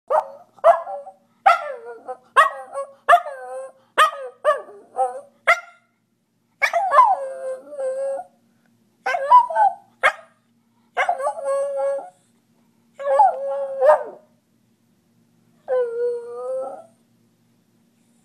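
A 10-year-old miniature schnauzer howling: a rapid run of short yipping calls for the first six seconds or so, then five longer wavering howls of about a second each, with short pauses between.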